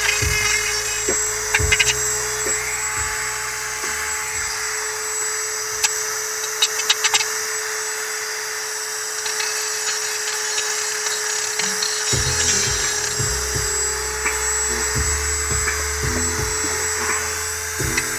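Corded handheld rotary tool running steadily with a constant whine, grinding and sharpening a blade edge.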